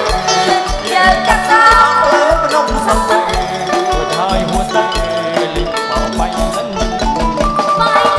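Live Khmer romvong dance music from an amplified orkes band: a man and a woman singing a duet over electric keyboard, bass guitar and a steady drum beat.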